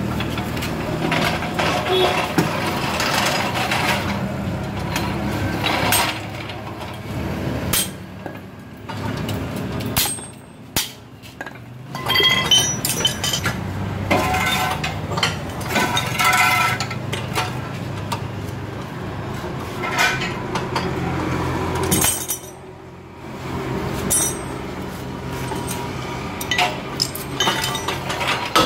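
Irregular metal clinks and knocks of hand tools working on a car's rear brake drum and hub, and of tools being picked up and set down on a concrete floor, with sharper hammer taps on the steel drum near the end.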